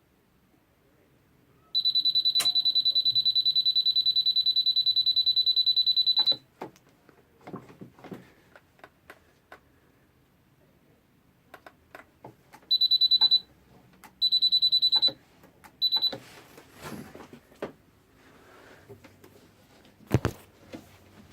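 Peugeot e-Vivacity electric scooter's warning buzzer giving a high, steady beep for about four and a half seconds, then three shorter beeps, among scattered clicks, with a sharp click near the end. The scooter won't start.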